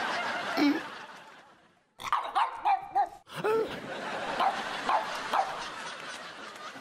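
Pug barking: a quick run of about four short barks about two seconds in, then a few scattered barks over a steady hiss.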